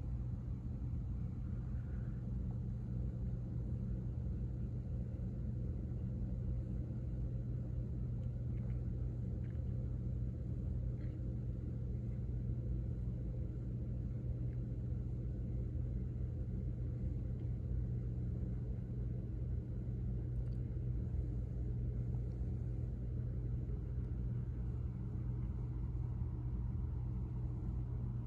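Steady low rumble with a constant low hum, unchanging throughout, with a few faint ticks.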